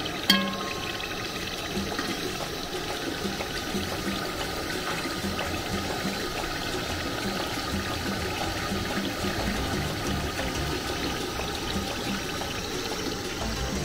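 Liquid pouring and trickling steadily, with a sharp ringing knock just after the start.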